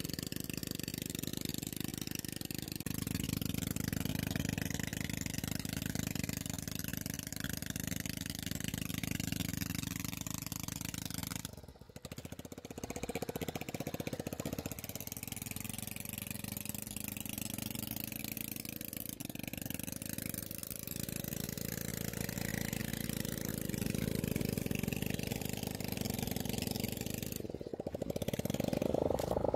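Steady low rumbling noise, with water sloshing as gloved hands grope for prawns in shallow muddy water. The sound breaks off briefly about twelve seconds in.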